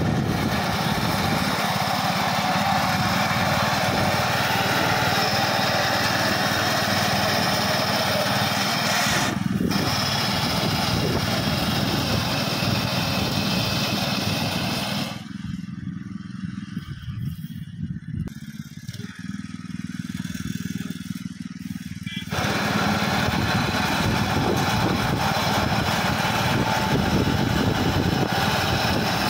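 Honda 7 hp single-cylinder petrol engine on a walk-behind power weeder with a reaper attachment, running steadily under load as it cuts grass. For several seconds past the middle the sound drops quieter and duller, then comes back to full level.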